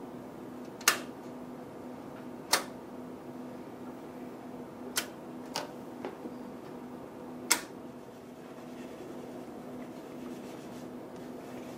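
Sharp clicks of load switches being flipped, four loud ones and a couple of fainter ones, as loads are switched onto the phases of a three-phase test circuit. A steady low electrical hum runs underneath.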